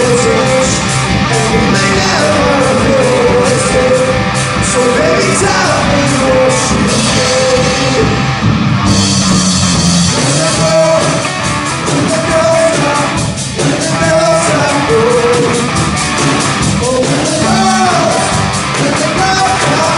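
Live rock band playing: electric guitar and drum kit with a male lead vocal singing over them.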